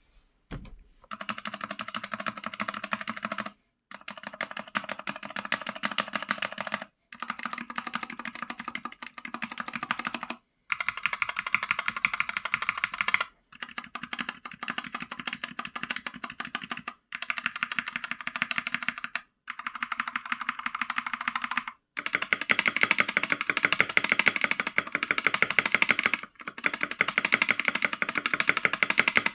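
Redragon Fizz K617 mechanical keyboard being typed on fast: a dense stream of key clicks in stretches of a few seconds, broken by short pauses, louder over the last several seconds.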